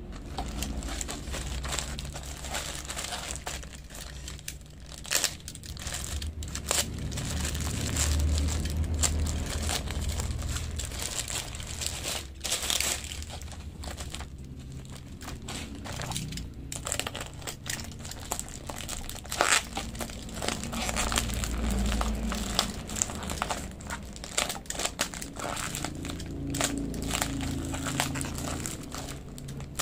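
Plastic mailer and tape-wrapped plastic packaging crinkling and crackling unevenly as it is handled and cut open.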